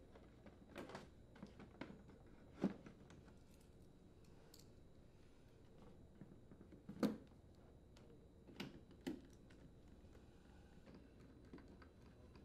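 Faint, sparse clicks and light knocks as a fiberboard refrigerator rear access panel is fitted back in place and its screws are driven in with a nut driver. The clearest knocks come about two and a half seconds in and, loudest, about seven seconds in.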